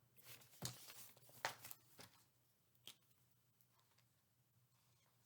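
Near silence: room tone with a faint low hum. A few faint clicks and light handling noises come in the first three seconds.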